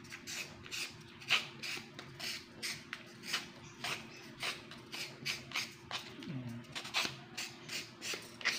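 A thin metal blade rasping a styrofoam ball into shape: a quick, even run of short scratchy strokes, about two to three a second.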